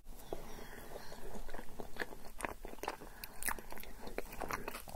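Wet chewing and mouth clicks of someone eating soft yogurt tantuni off a fork, many small sticky smacks in quick succession.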